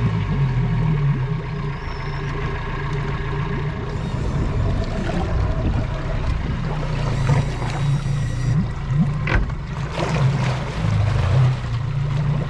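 Yamaha four-stroke outboard motor running steadily at low speed, its propeller churning the water. There is a brief click about nine seconds in.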